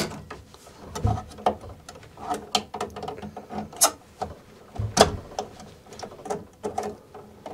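Irregular clicks, taps and scrapes of a hand tool and wire being worked at a metal electrical box, as the ground wire is stripped and fed in. The sharpest knock comes about five seconds in.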